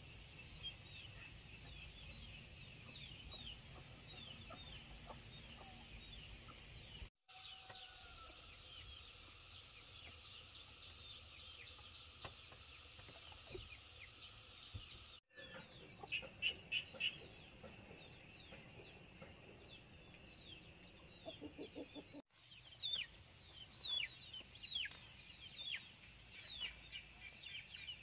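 Chickens clucking, with many short, high, falling peeps and chirps going on throughout and a few louder bursts of clucks. The sound drops out briefly three times.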